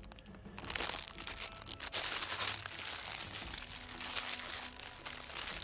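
A foil Doritos chip bag crinkling as it is handled, with the crushed chips inside rustling.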